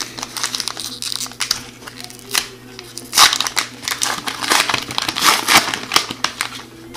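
Plastic foil wrapper of a hockey card pack being torn open and crinkled by hand as the cards are pulled out: an irregular crackling, loudest about three seconds in and again just after five seconds.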